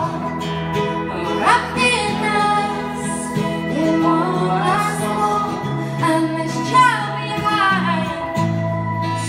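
A woman singing a song over electric guitar chords from a Fender Stratocaster, with a second guitar underneath.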